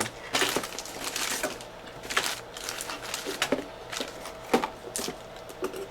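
Hand tools being handled and set down on a workbench: an irregular run of clicks, knocks and rustling, as when rummaging through tools.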